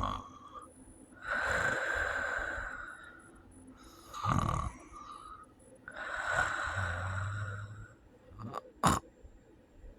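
A person with sleep apnea snoring in uneven breaths: two long noisy snores with a short one between them, then a sharp snort near the end.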